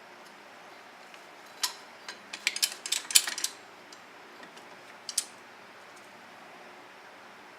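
Sharp metallic clicks and clinks of a hand-held brake caliper piston compressor tool being handled: a single click about a second and a half in, a quick run of clicks between about two and three and a half seconds, and one more near five seconds.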